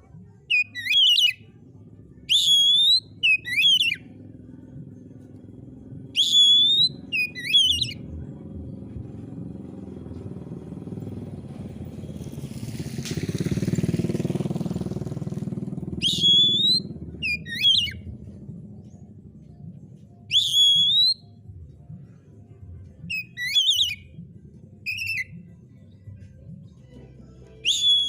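Oriental magpie-robin (kacer) singing: loud, short whistled phrases, each a sharp downward sweep ending in a brief held note, repeated every second or few. It pauses for several seconds mid-way while a low rumble swells and fades, then resumes.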